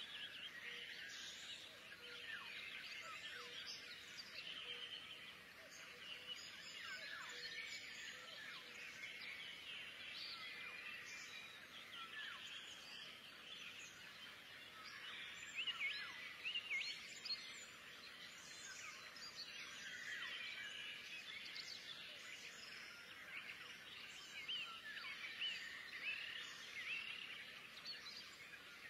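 Many small birds chirping continuously in the background: a busy chorus of short, quick, high chirps, a little louder about halfway through.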